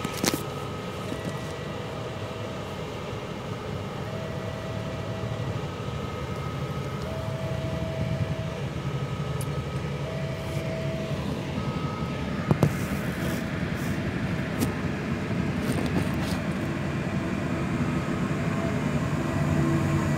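Railway level crossing's electronic warning signal sounding, a low and a high tone taking turns, each held about a second and a half, over the idling engines of motorcycles and cars queued at the crossing.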